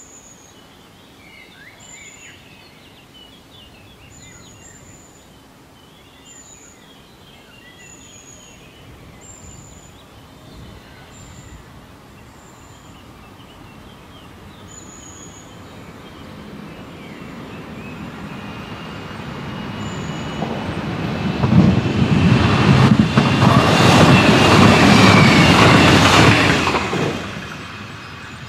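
DB Class 425 electric multiple unit pulling away and passing, growing from faint to loud and fading quickly near the end, with a thin high squeal in it as it goes by. Birds chirp over the first half.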